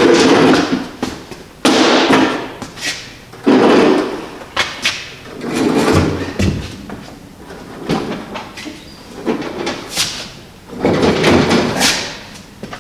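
A heavy engine on a small wheeled dolly being shoved and pulled across a concrete floor: the casters rumble in short bursts, each under a second, with sharp metal clanks and knocks between them.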